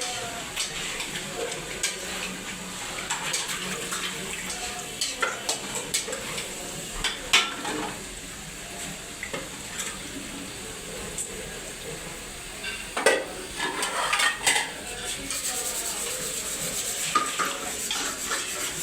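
A metal spoon clinking and scraping against a cooking pot as food is stirred, with a few sharper knocks about seven seconds in and again around thirteen to fifteen seconds in.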